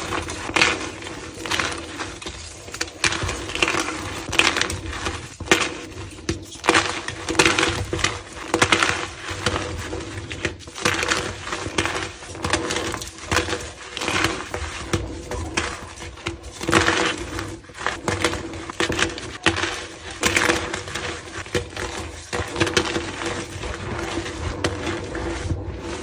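Gym chalk being crushed and crumbled: a continuous run of dry, crisp crunches and crackles, with a faint steady hum underneath.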